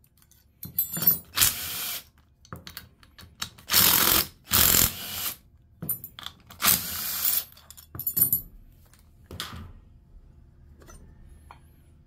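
Cordless impact tool run in short bursts, about six in the first nine seconds, spinning out the bolts that clamp the compressor housing to a Garrett TE62 turbocharger's center section. Quieter clinks of loosened metal parts follow near the end.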